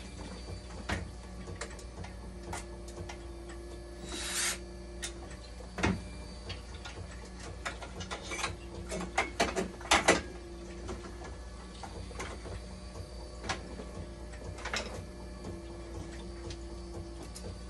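Scattered clicks and knocks of hands handling tubing and plastic parts inside an opened dialysis machine, thickest about nine to ten seconds in, over a steady hum. A short hiss about four seconds in.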